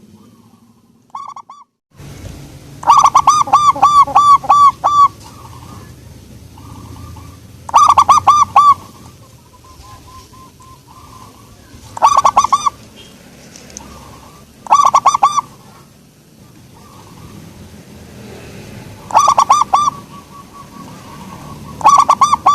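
Zebra dove (perkutut) cooing: about six loud phrases of quick, rhythmic coo notes, each phrase a second or two long, repeated every few seconds.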